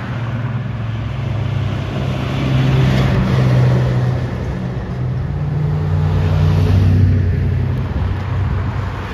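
Road vehicle engines running past on a street, the low engine note shifting in pitch and swelling twice, about three and seven seconds in.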